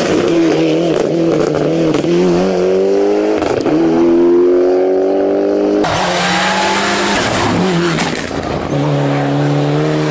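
Mitsubishi Lancer Evolution rally car engine driven hard at high revs: the note climbs in pitch, drops at each gearchange and climbs again. The sound jumps abruptly a couple of times between separate passes of the car.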